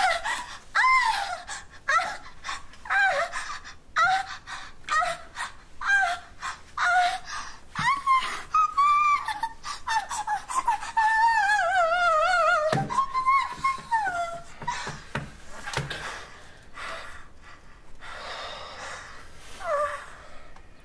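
A woman's high-pitched screams and wails: short yelps that rise and fall about once a second, then a long wavering wail about eleven seconds in that cuts off suddenly, followed by fainter cries.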